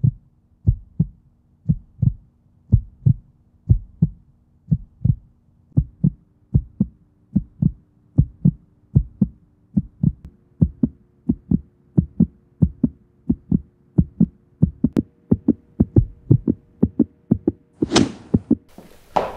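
Suspense film score: a regular low pulse about twice a second under a held drone that steps up in pitch three times, ending in a short whoosh near the end.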